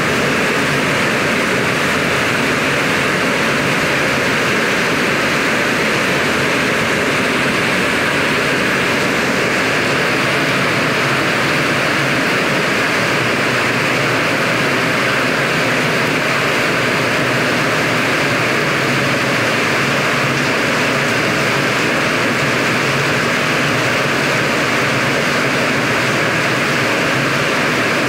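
Heavy tropical rainstorm with strong wind: a dense, steady rush of rain pouring down on the trees and foliage.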